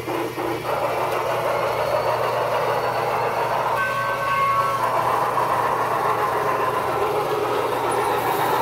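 Battery-powered toy steam locomotive running on its track, a continuous mechanical running and rattling noise, with a brief steady multi-note tone about four seconds in.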